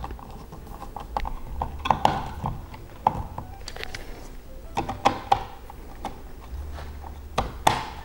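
A screwdriver and a plastic switch wall plate being handled as the plate is fitted over a dimmer and a rocker switch: scattered light clicks and knocks, with two sharp clicks near the end.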